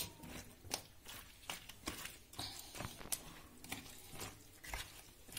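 Hand moving sauced potato and vegetable pieces around in a metal baking tray: faint, irregular clicks and taps of the pieces against each other and the tray.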